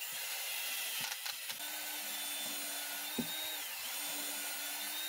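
A 20V lithium cordless drill running steadily with its bit on a rusty leaf spring shackle, its whine dipping briefly past the middle as the motor slows under load.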